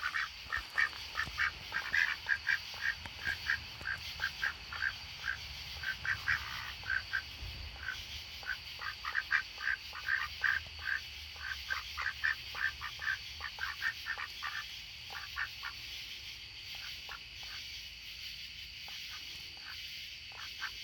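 Rouen ducks quacking in quick runs of short calls, several a second, thinning out past the middle and picking up again near the end.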